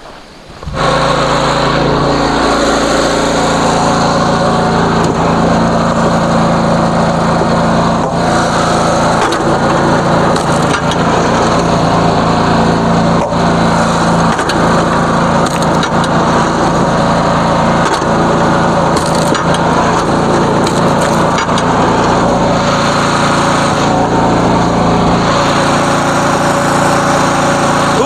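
Super Split kinetic log splitter running, its small gasoline engine and flywheel making a steady drone, with sharp cracks and splintering at irregular intervals as firewood rounds are split.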